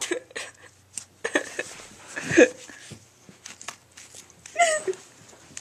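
Scissors snipping through denim jeans in a series of short, sharp cuts. Two brief distressed vocal cries come in between, the louder about halfway through.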